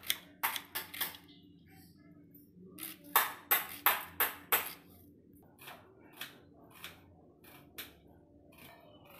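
Kitchen knife slicing a red onion on a cutting board: sharp knife strokes clicking against the board. There are a few strokes near the start and a quick run of about six around the middle, then only scattered faint ticks.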